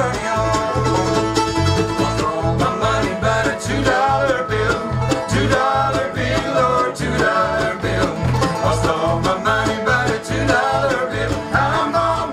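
Live bluegrass band playing, with banjo, mandolin, acoustic guitar, fiddle and bass, and the bass notes keeping a steady beat.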